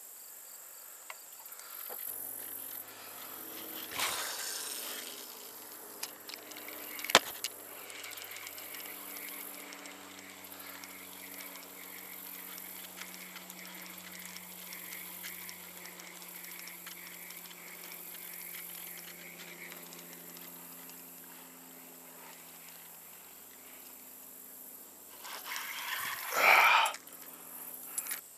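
Outdoor ambience with a steady high insect drone and a faint low hum, broken by a sharp click about seven seconds in and a short loud burst of noise near the end.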